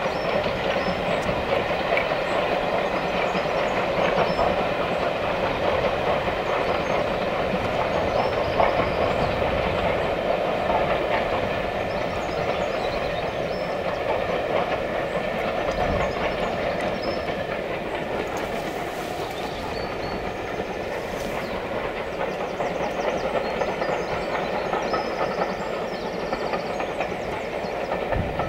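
Steam-hauled passenger train running past behind a GWR Large Prairie 2-6-2T tank engine, the coaches' wheels clattering steadily over the rail joints. The sound eases a little in the second half as the train draws away.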